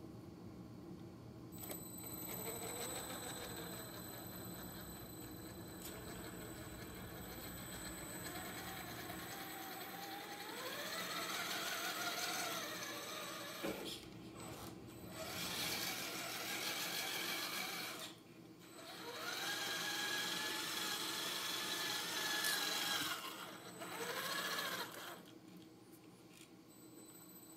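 Traxxas TRX4 Sport RC crawler's stock brushed electric motor and drivetrain whining, the pitch rising and falling with the throttle in several runs, with short stops around the middle and a few brief bursts near the end. A faint steady high-pitched tone sits underneath.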